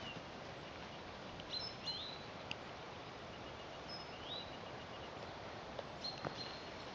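Small birds giving scattered short, high chirps, some rising in pitch, over faint steady outdoor background noise.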